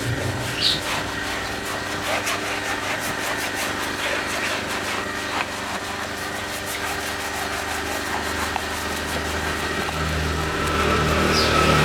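An engine running steadily with an even hum. A deeper note grows louder near the end.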